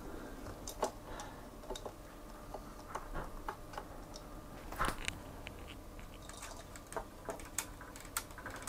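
Scattered small plastic clicks and taps of LEGO Technic parts being handled: the crane's hook and a small barrel load are fitted together, with one sharper click about halfway through and more frequent clicks near the end as the crane's winch handle is taken hold of.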